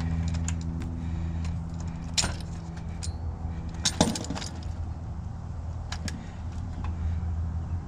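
Metallic clicks and clinks from tools and wire terminals being handled while a contactor is swapped in an AC condenser unit. The sharpest clicks come about two, four and six seconds in. Under them runs a steady low hum.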